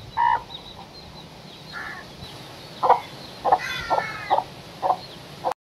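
A mother hen clucking in about eight short, separate calls, while her chicks peep faintly and high.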